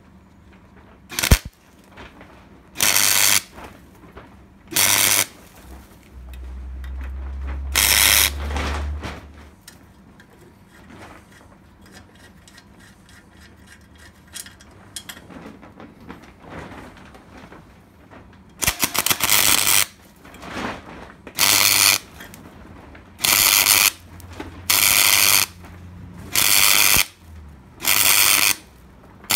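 MIG welder tack welding small steel tabs onto a steel chassis rail: about ten short welding bursts, each half a second to a second long, in two groups, with a long pause in the middle.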